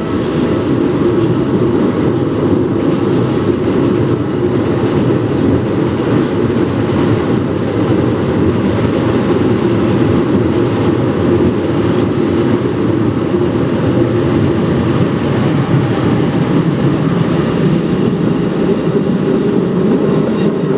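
Hokuso Line train passing close by over a level crossing: a loud, even rumble of wheels on rails with the clickety-clack of rail joints. A level-crossing bell rings steadily underneath.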